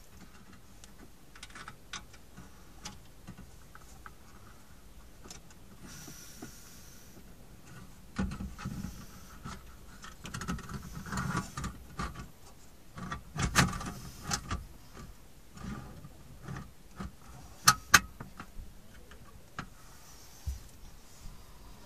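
Scattered plastic clicks, knocks and rattles of an aftermarket car stereo head unit being fitted into the dashboard slot. Handling noise is busiest in the middle, and two sharp clicks come close together near the end.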